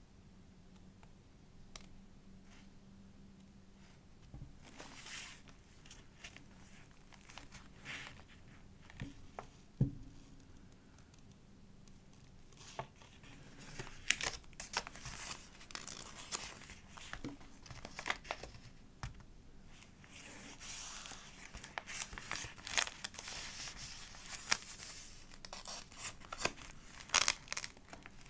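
Pages of a thick collage journal, layered with paper cut-outs and stickers, being handled and turned: crinkling paper rustles and sharp little taps. It is sparse at first and gets busier and denser from about halfway through.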